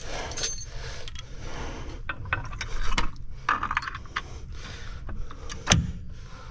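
Metal clinking and rattling of truck brake shoe hardware (springs and spring holders) being handled and fitted into place, with a sharper knock about three seconds in and a louder one near the end.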